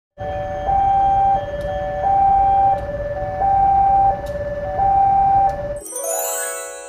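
Railway level-crossing warning alarm sounding a steady two-tone hi-lo signal, switching tones under every second, over the low rumble of a passing diesel locomotive. Near the end it cuts off and a bright ringing music chime takes over.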